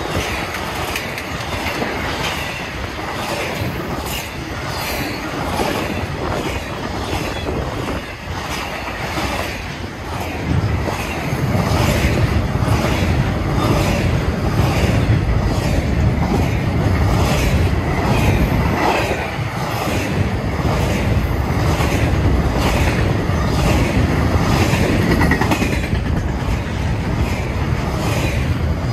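Double-stack intermodal freight cars rolling past at speed: a continuous rumble with the wheels clicking in a steady rhythm. About ten seconds in, the low rumble grows heavier and louder.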